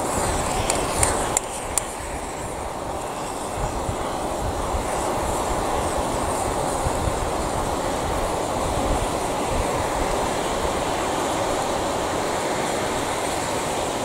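Gas torch jet burning with a steady rushing hiss as it plays on a coffee maker's burning plastic housing, which crackles, with a few sharp snaps in the first two seconds.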